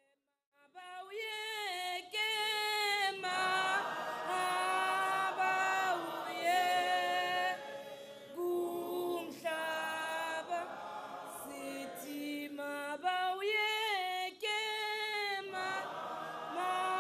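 A group of voices singing a cappella, in sung phrases with held notes and short breaks between them, starting about a second in.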